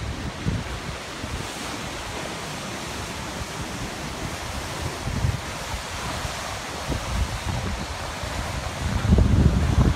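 Sea surf breaking and washing against black lava cliffs, heard as a steady rushing. Wind buffets the microphone in uneven low gusts that grow louder near the end.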